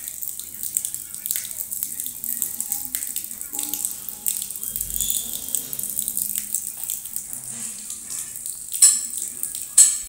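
Rose-ringed parakeet bathing in a shallow puddle on a stone floor, fluttering its wings and splashing water in a rapid run of small splashes. The loudest splashes come near the end.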